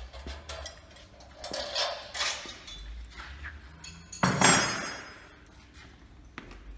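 Galvanized steel parts of the sawmill rail and its wheeled stand knocking and clinking as they are handled and fitted, with one louder metallic clang about four seconds in that rings briefly.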